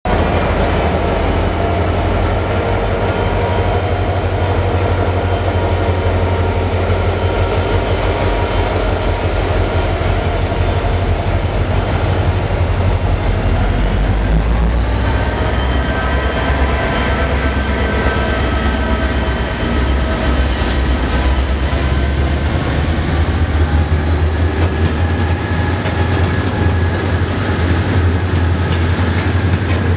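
Two EMD 16-645-powered diesel-electric locomotives, an XR class and a G class, pulling a grain train away under power. A deep engine rumble runs throughout, with a high turbocharger whine that climbs in pitch about halfway through and again past two-thirds of the way as the locomotives throttle up and the hopper wagons roll past.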